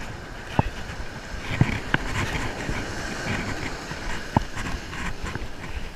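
Wind buffeting the microphone over waves washing up the beach, with a few sharp clicks from handling of the fishing rod and reel.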